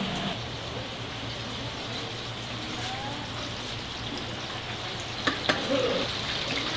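Chicken deep-frying in a commercial basket fryer, the oil sizzling steadily. A little after five seconds in come two sharp metal clicks from the steel tongs and wire fryer basket.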